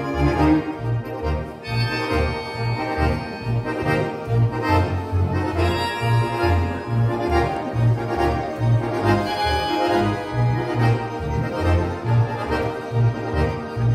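Accordion quintet playing, with a steady pulsing bass line under held chords and a melody.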